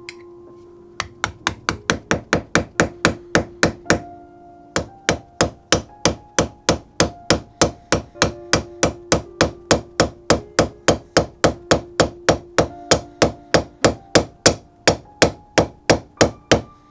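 Hammer blows on a steel center punch, driving the old handle out of the axe head's eye. The blows are sharp and evenly paced, about three a second, with a brief pause about four seconds in.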